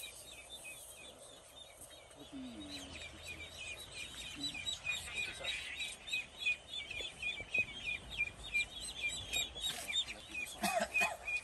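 A bird calling in a long run of short high chirps, about four a second, with a few lower calls near the end.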